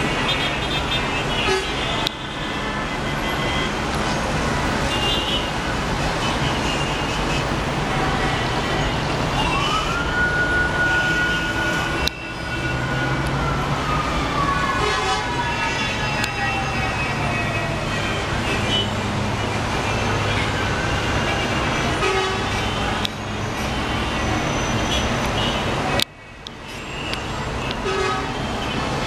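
Dense city traffic: a steady din of engines with frequent car horns honking. About ten seconds in, a single siren tone rises, holds, then slowly falls away.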